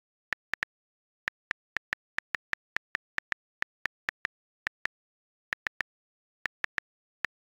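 Gboard on-screen keyboard key-press clicks on a tablet, a quick uneven run of short, sharp ticks as a message is typed, with total silence between taps and a few short pauses between words.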